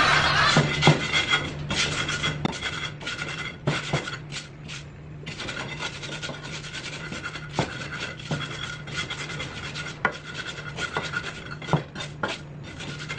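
Pestle grinding garlic and red chilies in a shallow cobek mortar: a rasping, rubbing scrape with irregular knocks as the stone strikes the bowl.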